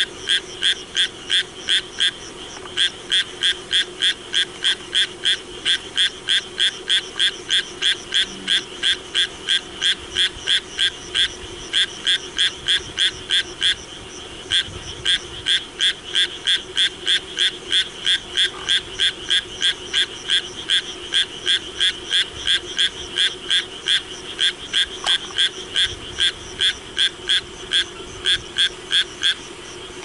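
Japanese tree frog (Hyla japonica) calling: a long run of short notes repeated about three or four times a second. The run breaks off briefly about two seconds in and again near the middle.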